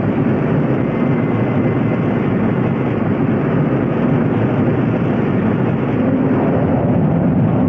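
Rocket sled's rocket motors firing as the sled runs at speed down the high-speed test track: a loud, steady, rough rushing noise that holds evenly throughout.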